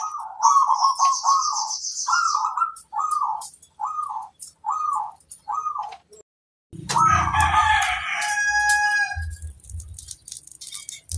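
Zebra dove (perkutut) cooing: a run of about seven rolling, evenly spaced coo notes, with a high, fast chirping from a small bird over the first couple of seconds. After a brief break about six seconds in, a louder, denser burst of calls starts over a low hum.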